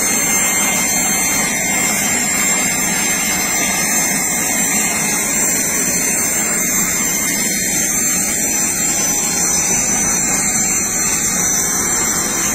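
Steady, loud engine noise: an unbroken rush with a thin high whine running through it.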